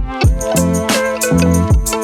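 Background music with a steady beat: deep kick drums that drop in pitch, sharp snare and hi-hat hits, over held chords and a bass line.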